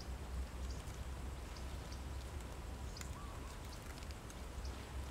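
Green mustard leaves and stems rustling and ticking faintly as they are handled by hand, over a low wind rumble on the microphone.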